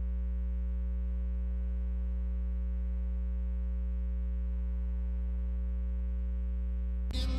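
Steady electrical mains hum, a low buzz with a ladder of evenly spaced overtones that does not change. It breaks off near the end as music comes in.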